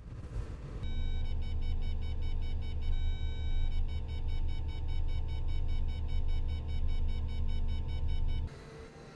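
Cat 323 excavator's engine running steadily, with fast, evenly repeating electronic beeps over it; both start and cut off abruptly.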